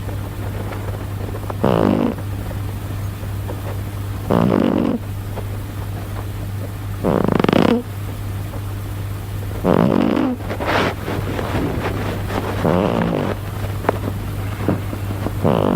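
Domestic cat snoring in its sleep: about six loud, rasping snores at a slow, even pace, one every two and a half to three seconds.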